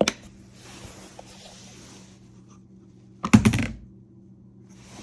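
Sharp hard-plastic clicks from a Whirlpool dishwasher's detergent dispenser being handled after its hinge pin and spring were refitted: a single click right at the start, then a quick run of several clicks and knocks about three seconds in.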